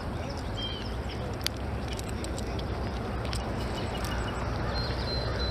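Steady rush of flowing river water under a low rumble, with a few faint clicks.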